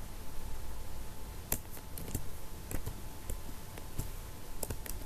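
Computer keyboard being typed on: about a dozen irregular key clicks, starting about a second and a half in, over a low steady background hum.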